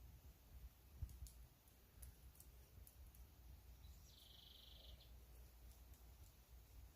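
Near silence with a few faint clicks, then a brief high, buzzy trill lasting about a second, about four seconds in, over a low rumble.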